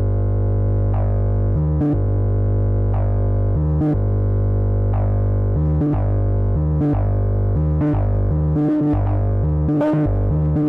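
Modular synthesizer bass line: a Turing Machine random sequencer, quantized to two notes of a C minor chord, steps a VCDO oscillator's low subwave between two pitches through an MS-20 filter. A short filter accent comes roughly once a second, and the notes change more often in the second half.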